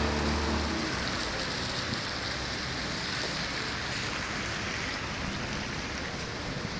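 Steady hiss of heavy rain falling during a storm. A vehicle engine fades out within the first second.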